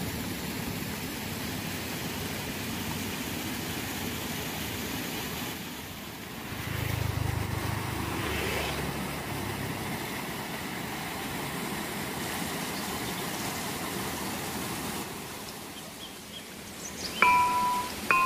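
Steady outdoor rushing noise, with a vehicle passing on the road about seven to nine seconds in. Near the end, bright glockenspiel-like chime notes begin.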